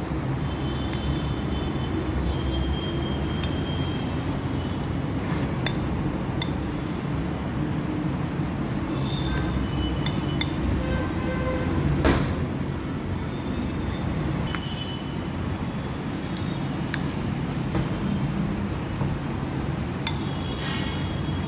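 A metal spoon clinking and scraping against a ceramic bowl while mixing a thick mashed yellow-pea mixture, with scattered clicks and one louder clink about halfway through, over a steady low background rumble.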